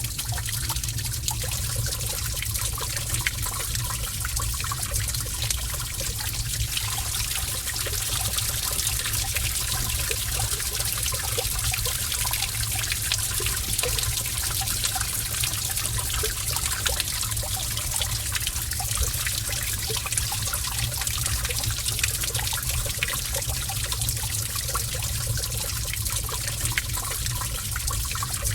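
Gentle running water trickling in a cave, with many small drips and splashes over a steady low rumble.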